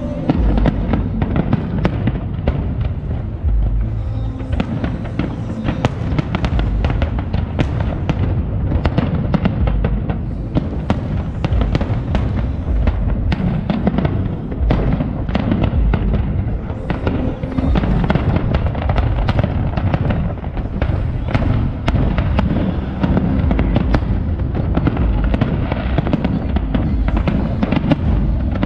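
Aerial fireworks display at full intensity: a continuous barrage of shell bursts and crackle, several bangs a second over deep booms, with no pause.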